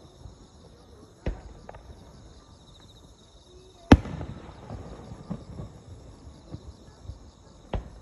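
Aerial firework shells bursting at a distance: three sharp bangs, the loudest about four seconds in. A steady high chirping of field insects runs underneath.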